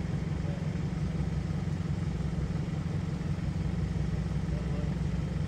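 A car engine idling steadily, a low, even hum with no change in pitch.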